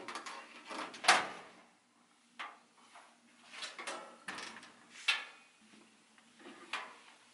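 Top-loading washing machine being handled: a series of knocks and clunks from its lid and drum, the loudest about a second in, with clothes rustling as the laundry is pulled out.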